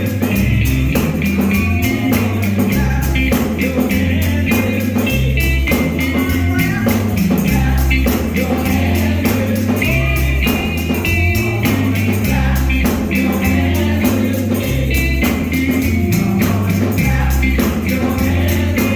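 Gospel music with singers, a tambourine and a steady, driving beat over a strong bass line.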